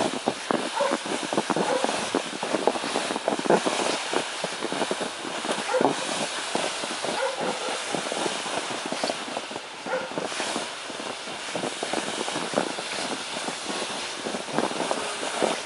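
Plastic sled scraping and crunching over a thin layer of snow and grass as it is pulled along: a continuous rough scraping made of many small crackles.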